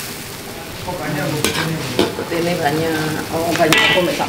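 A metal spatula stirs and scrapes in an aluminium wok while milkfish and petai beans sizzle in sauce, with a few sharp scrapes of metal on metal.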